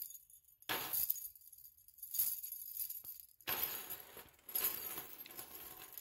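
Metal necklace chains jangling and clinking as they are handled and tugged at a multi-strand tube clasp. The sound comes in several short bursts, the longest in the second half.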